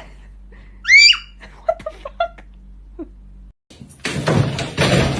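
A pet animal calling: one loud high cry that rises and falls about a second in, then a few short, lower yelps. Near the end it gives way to a dense, noisy mix of sound.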